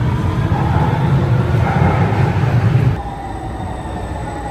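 Copenhagen Metro train running behind the platform screen doors: a loud, low rumble that drops off suddenly about three seconds in to a quieter running sound with a faint whine.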